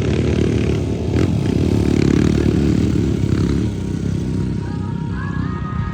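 ATV engine running with a dense low rumble. A light melody of music comes in near the end.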